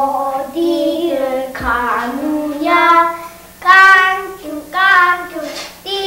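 A child singing a tune in short phrases of held notes, with a steady low hum underneath.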